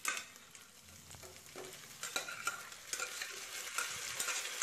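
Cooked mutton pieces and gravy tipped from a pot into a kadai of shallots frying in sesame oil, with a frying sizzle that gets louder from about two seconds in as the meat lands, and scattered light clicks of the pot and meat against the pan.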